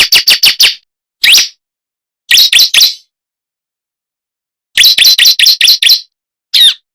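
Bar-winged prinia (ciblek) calling in bursts of rapid sharp chirps: about five notes at the start, a single note, four notes, a run of about eight near the end, then one last note. It is a bird-lure recording, meant to draw other ciblek to answer.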